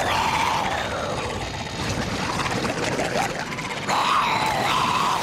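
Cartoon sound effects of a sea monster attacking a ship in a storm: a dense rush of churning waves, with a drawn-out creature roar rising and falling from about four seconds in.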